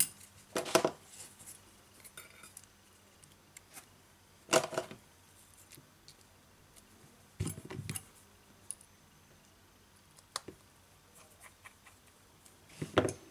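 Plastic spring clamps being clipped onto the edges of a smartphone to hold a freshly glued display module in place while it sets. There are four short clattery bursts of clicks and clacks, about a second in, near five seconds, near eight seconds and near the end, with light handling sounds between them.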